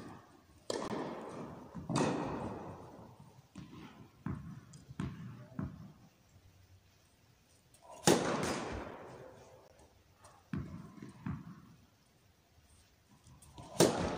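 Tennis balls hit with racquets in an echoing indoor hall. Two hits come early, then several light bounces of the ball on the carpet court before the serve. The serve is struck about eight seconds in, the return about two and a half seconds later, and a loud groundstroke near the end.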